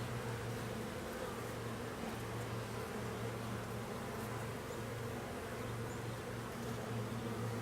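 Honeybees of an opened hive buzzing, a steady low hum of many bees that never breaks.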